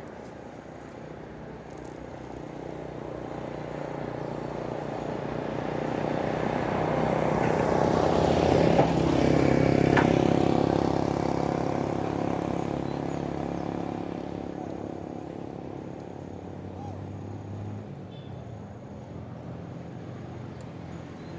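A motor vehicle passing on the road: its engine and tyre noise grow louder to a peak about nine or ten seconds in, then fade away.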